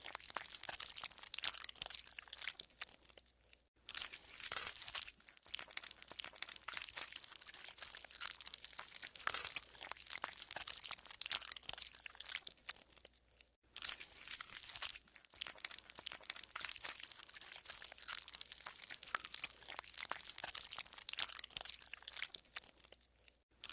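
Green slime being squeezed and worked, giving a dense run of crackling, squeaking and squelching, broken by short pauses about four seconds in and again about halfway through.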